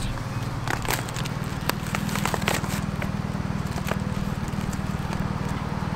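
Paper takeaway food box being opened, its cardboard flaps and wrapping crackling and tapping in short scattered clicks, over a steady low hum.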